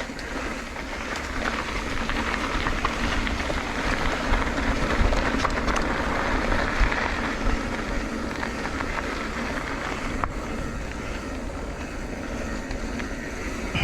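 Motorcycle riding along: engine running under steady wind rush on the microphone, the rush growing louder a few seconds in, then easing.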